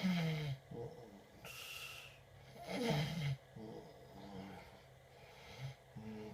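A man snoring, several rough snores with falling pitch, the loudest at the start and about three seconds in, mixed with a baby's small babbling sounds and a breathy hiss.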